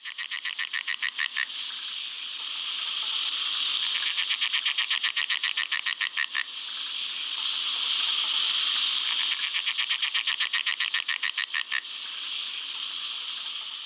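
Peron's tree frog (emerald spotted or cackling tree frog) calling loudly. Rapid rattling trills of about ten pulses a second come three times, with a steadier buzzing between them.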